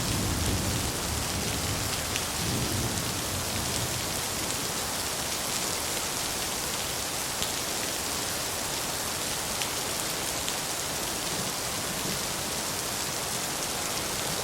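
Steady rain falling, with a low rumble of thunder in the first few seconds.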